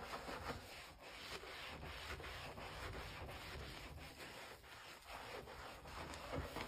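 A sudsy sponge scrubbing a soapy sink basin, rubbing back and forth in quick, uneven strokes, about two a second.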